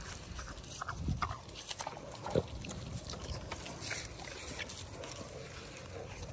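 Vietnamese pot-bellied pigs eating vegetables, with scattered crunching and snuffling and a few short low grunts, one about a second in and another about two and a half seconds in.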